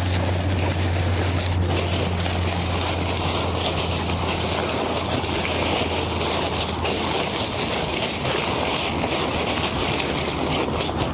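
Wind blowing across the microphone: a steady rushing with a low rumble that eases about halfway through, over the rustle of nylon tent fabric being folded and stuffed into its bag.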